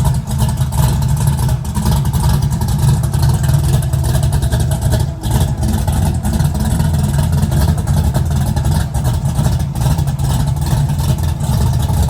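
A loud engine running steadily, most of its sound a deep rumble.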